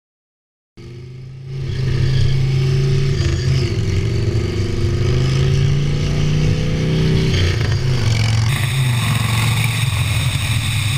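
A 1976 Harley-Davidson Shovelhead's 1200 cc V-twin engine running as the custom motorcycle is ridden, its pitch rising and falling with the throttle. It starts under a second in and soon grows loud.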